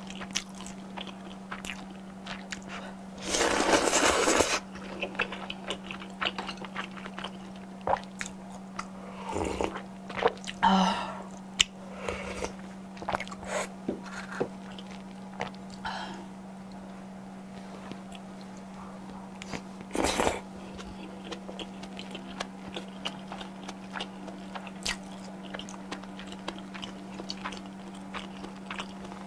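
Close-miked eating of thick udon noodles: wet chewing and biting with many small clicks, broken by noisy slurps, a long one of about a second a few seconds in and shorter ones later. A steady low hum runs underneath.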